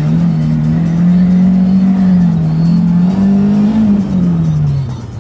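FSO Polonez 1.4's four-cylinder Rover K-series engine revved hard and held at high revs during a drift attempt on wet ground, heard from inside the cabin; the revs fall away about four seconds in as the throttle is lifted.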